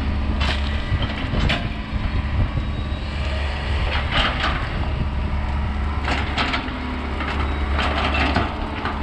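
John Deere trackhoe's diesel engine running steadily, with several short bursts of noise over it as the machine drops and shoves stumps and brush onto the pile.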